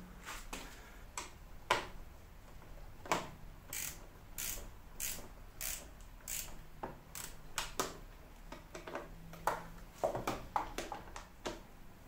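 Hand tools on screws: an Allen key and screwdriver turning and tapping against metal screw heads and a mounting plate. The result is sharp, uneven clicks, about one or two a second.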